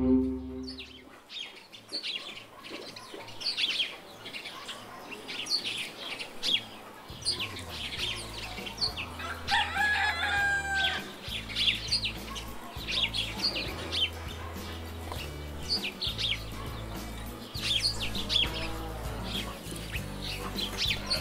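Farmyard birds: many short bird chirps throughout, with a rooster crowing once about ten seconds in. Soft low background music comes in underneath after about seven seconds.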